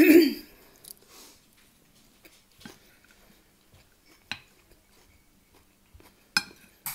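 A wooden spoon scooping rice and knocking against a ceramic plate: a louder, longer scrape right at the start, then a few separate short clicks a second or two apart.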